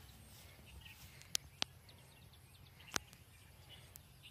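Quiet outdoor ambience with faint bird chirps, broken by three sharp clicks about a second and a half in, just after, and about three seconds in.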